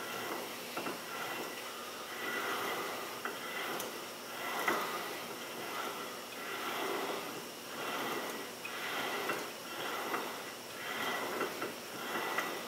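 Yukon 4.88 ring-and-pinion gears in a Jeep Wrangler rear differential being turned by hand, the teeth meshing with a soft rasp that swells and fades about once a second as each stroke rolls the gear. The gears are rolled through marking compound to check the mesh pattern.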